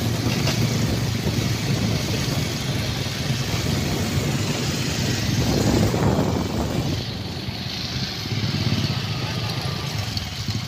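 Motorcycle running at road speed: a steady low engine hum under the rush of wind on the microphone. The rush swells about six seconds in and then eases.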